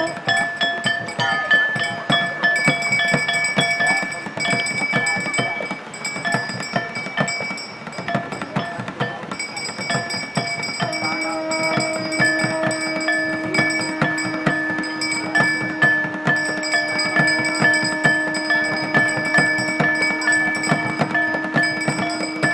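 Music with fast, steady drum beats under long held notes.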